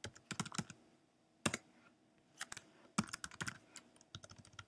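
Typing on a computer keyboard: several short runs of key clicks separated by brief pauses.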